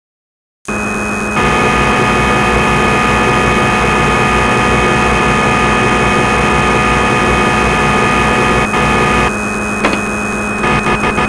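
Steady mechanical hum with a few constant high tones over it, starting abruptly after a moment of silence; near the end it breaks into a rapid pulsing.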